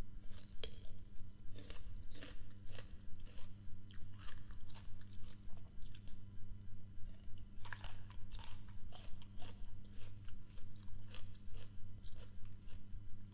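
Close-up crunching and chewing of crisp raw fruit, with sharp crunches about twice a second as each mouthful is bitten and chewed. A steady low hum runs underneath.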